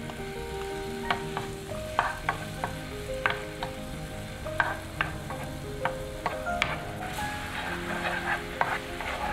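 Sliced shallots and garlic frying in sweet soy sauce in a nonstick frying pan, with a soft sizzle as they are stirred. A spatula scrapes and taps against the pan about once a second.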